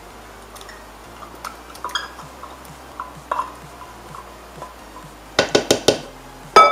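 A spoon scraping diced green chilies out of a tin can, with light scattered knocks. Near the end come a quick run of sharp taps and a last loud one that rings, as the utensil is knocked against the metal can to shake the chilies loose.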